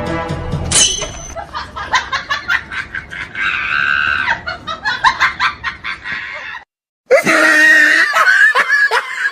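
Comedy ringtone: music cuts off about a second in, and a voice shrieks and then laughs and screams in rapid choppy bursts. It breaks off for half a second about two-thirds of the way through, then starts again loudly.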